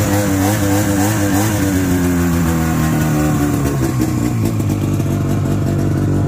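1994 Ski-Doo Safari L snowmobile's two-stroke engine idling. Its pitch wavers slightly for the first couple of seconds, then settles into a steady idle.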